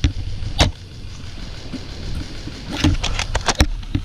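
Sharp snaps and clicks of airsoft gunplay: a single crack about half a second in, then a quick irregular run of several snaps and clicks near the end. Under them is a steady low rumble of handling noise.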